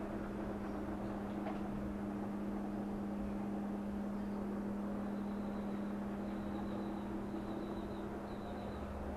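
Steady low hum with a constant droning tone, as of machinery or ventilation running inside the steel hull of a submarine.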